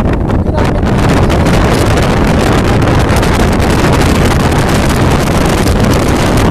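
Strong wind buffeting the microphone: a loud, steady rumble with no pause.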